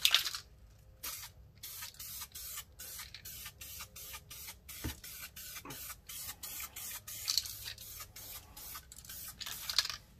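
Aerosol can of two-part epoxy primer spraying in many short hissing bursts, with a few longer, louder bursts near the start, about two-thirds of the way in and near the end.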